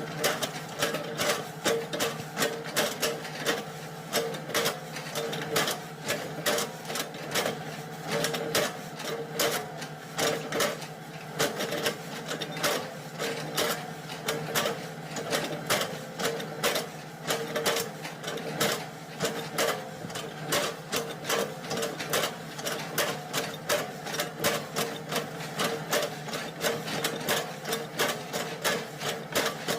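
Excavator chipping oil palm trunks: a fast, uneven run of knocks, about three a second, over the steady hum of the engine.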